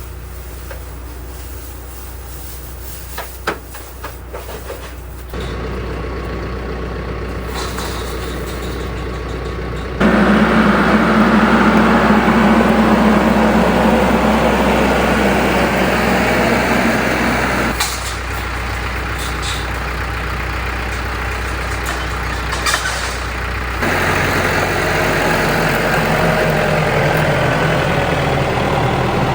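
A motor vehicle's engine running steadily, with a low hum throughout and the surrounding noise jumping in level several times as clips change. A few sharp clicks or knocks stand out.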